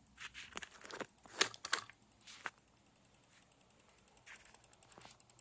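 The fan of an EVGA 850 BQ ATX power supply clicking once every revolution, a rapid even ticking that grows louder in the second half, with a few louder knocks in the first couple of seconds. The click comes from an injection-moulding burr on the fan catching on the motor's stator.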